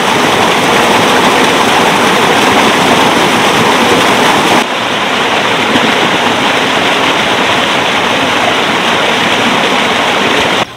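Loud, steady rush of fast-flowing river water, with a slight drop in level about four and a half seconds in, where the sound cuts to another stretch of water.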